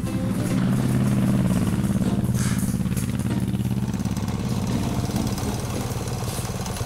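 Motorcycle engine idling with a fast, even firing beat, a little louder during the first couple of seconds.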